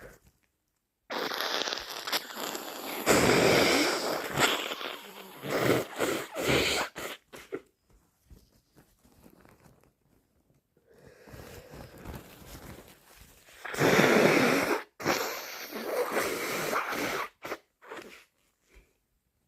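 A person with a bad cold sneezing, in two bouts about ten seconds apart; each bout is a few seconds of breathy, wet noise that peaks in a loud burst.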